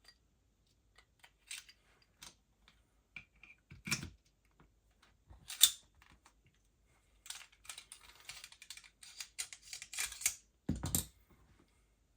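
Small hard parts of an airsoft pistol being handled on a workbench: scattered light clicks and knocks, a stretch of scratchy rattling in the second half, and a heavier knock near the end.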